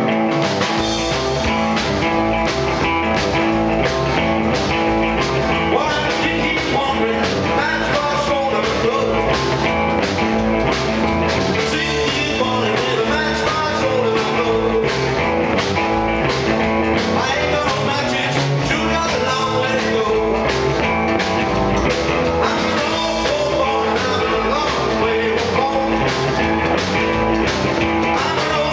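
Live rockabilly band playing: a male singer over a hollow-body electric guitar and a drum kit keeping a steady, driving beat.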